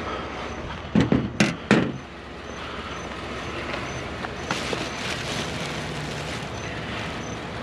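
Rummaging through a bag of discarded shoes: a few short rustling and knocking handling sounds about a second in, then more faint handling over a steady low hum.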